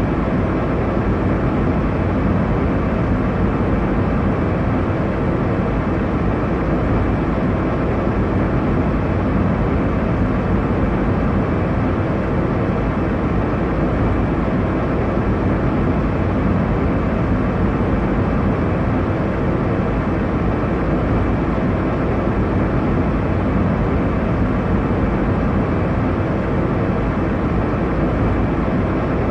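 Airliner cabin noise in cruise: a steady, even rush of engine and airflow with a low hum, unchanging throughout.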